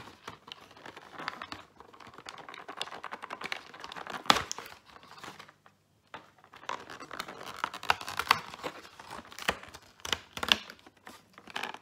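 Paperboard packaging of a Kinder advent calendar being handled and torn open: crinkling and tearing with many small clicks, a sharp snap about four seconds in, and a short pause near the middle.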